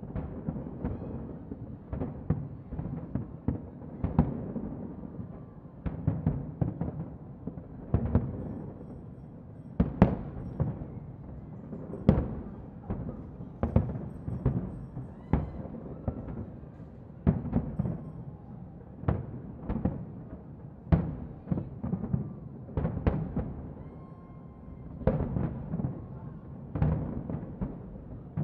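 Fireworks shells bursting in quick succession: deep booms and sharp cracks coming in clusters about every two seconds.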